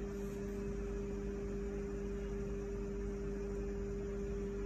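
Steady electrical hum with a faint hiss behind it, even and unchanging throughout.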